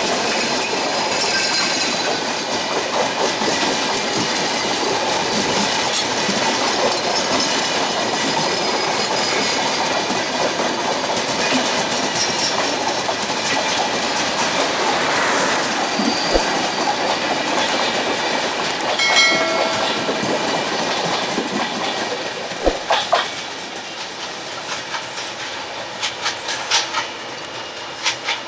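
Broad-gauge passenger coaches rolling past at speed: a steady rush of wheel-on-rail noise with clickety-clack over the rail joints. A brief pitched tone sounds about two-thirds of the way through. Near the end the noise drops, leaving scattered sharp clicks.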